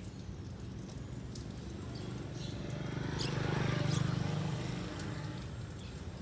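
A low rumble, as of a vehicle driving past, swells to its loudest about four seconds in and then fades, with a few faint ticks near the peak.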